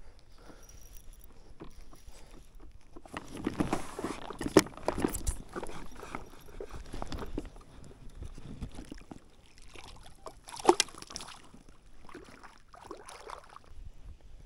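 A small hooked trout splashing at the surface beside the boat, with water sloshing in irregular bursts and two sharp knocks, one about four and a half seconds in and one near eleven seconds.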